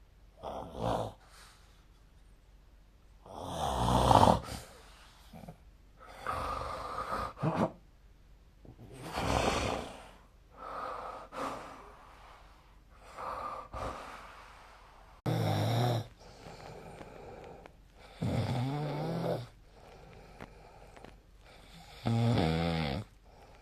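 A sleeping person snoring. Breaths come every two to three seconds: some are soft airy puffs, a "pusuu, pusuu", and others, mostly in the second half, carry a low buzzing vibration.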